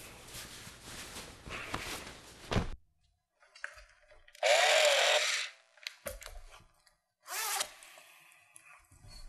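Clothes rustling as a basketball jersey is pulled off over the head. After a short dead gap comes a loud rasping noise about a second long, and a shorter rasp near the end, as a flannel vest is handled.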